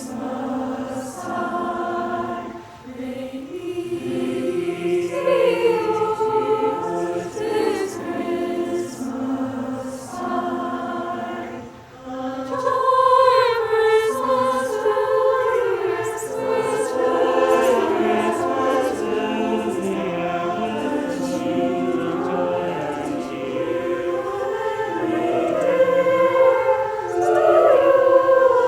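High school choir singing in several voice parts, with short breaks between phrases about three seconds in and again near twelve seconds.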